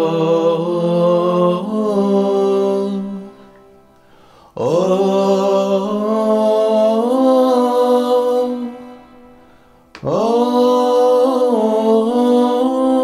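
A man's voice singing long held notes through a TC-Helicon VoiceLive 3 Extreme vocal effects pedal, with added harmony voices and delay, in three phrases, each fading out in echoes before the next begins.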